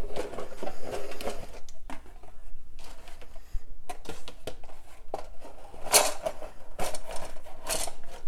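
Cardboard plastic-model kit box being opened by hand: the lid sliding off, the paper instruction sheet rustling and the plastic sprues inside clattering lightly, with a few sharper rustles in the last few seconds.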